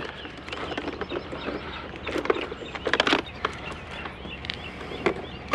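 A few short knocks and clatters as things are handled, with birds chirping in the background.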